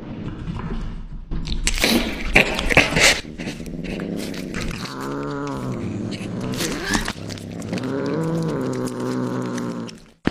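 Cats biting and chewing raw chicken, with crunching bites in the first few seconds, then a cat's low growling cries while it eats: two long drawn-out calls that rise and fall in pitch.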